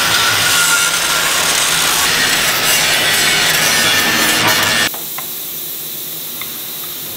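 Handheld electric angle grinder grinding down the weld bead along the top edge of a steel excavator boom, a steady hissing grind with a faint whine. It cuts off suddenly about five seconds in, leaving a fainter hiss with a couple of light ticks.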